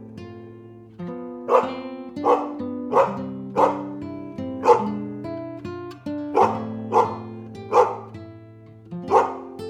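Short, sharp barks, about nine of them at irregular intervals of roughly a second, over background music with plucked guitar notes.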